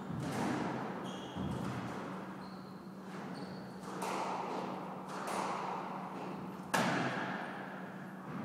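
Squash rally: the ball cracks off rackets and the court walls about five times, each hit echoing in the enclosed court, the loudest near the end, with short squeaks of shoes on the wooden floor in between. A steady low hum runs underneath.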